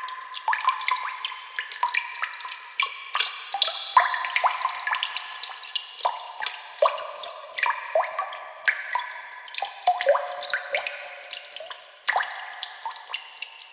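Water drops dripping: many irregular drops plink, several a second, each a short pitched blip.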